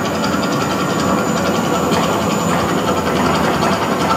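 The Mirage's man-made volcano erupting: a loud, steady rumble of burning gas flames, with a fast rattling clatter running through it.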